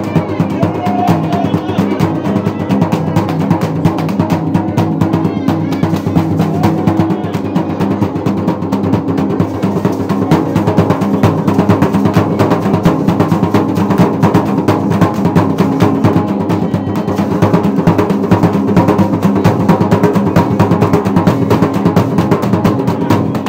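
Fast, unbroken drumming on a small skin-headed hand drum beaten with a stick.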